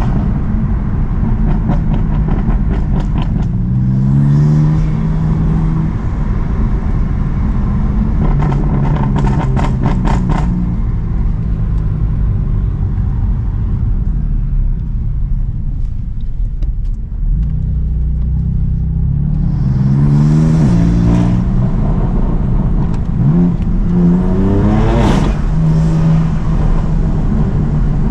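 BMW M4 CS's twin-turbo inline-six running while the car is driven, rising in pitch as it accelerates about four seconds in, around twenty seconds in and again a few seconds later. Two runs of rapid, sharp crackles come a couple of seconds in and again around eight to ten seconds in.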